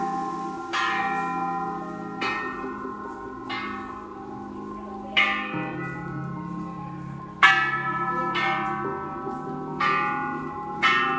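Hanging Thai temple bells struck one after another, about seven strikes at roughly one every one to two seconds. Each strike rings out with several pitched tones and slowly fades, so the bells overlap into a lasting hum. The loudest strike comes about two-thirds of the way through.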